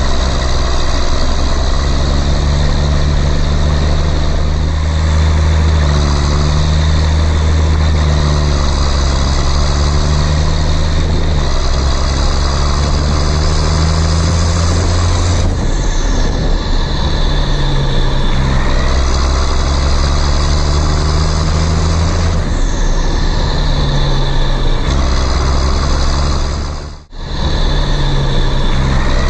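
Heavy diesel tractor engine sound running steadily under load, its note shifting up and down a few times and cutting out for a moment near the end.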